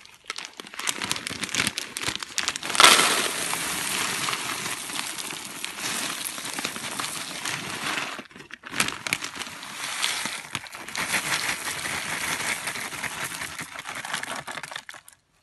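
Dry gerbil food mix poured from a plastic bag into a plastic tub: the bag crinkles while the seeds and flakes rattle against the plastic. The pouring gets louder about three seconds in and breaks off briefly about eight seconds in.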